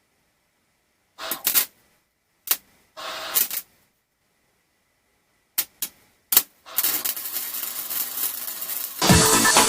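Arc welder crackling in short strikes: a few brief bursts, then three quick pops around the six-second mark. From about seven seconds in it settles into a steadier welding crackle. Background music comes in near the end.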